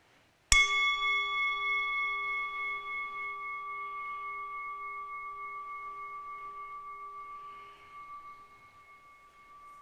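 Handheld metal singing bowl struck once about half a second in, then ringing with a clear, slightly wavering tone that slowly fades. It is rung to open a short meditation.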